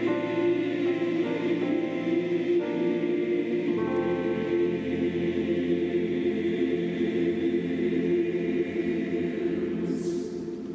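Church choir singing the close of an anthem: a few changing chords, then a final chord held from about four seconds in that dies away near the end, with a brief hiss as it fades.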